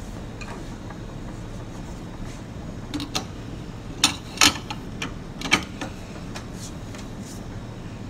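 Sharp metal clicks and clinks as a portafilter is fitted up into the group head of a CBC Royal Synchro T2 espresso machine and twisted to lock against the freshly replaced gasket. The loudest clinks fall near the middle, over a steady low hum.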